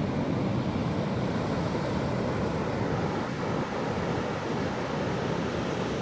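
Wind buffeting the microphone in a steady low rumble, over the rush of rough ocean surf breaking on the beach.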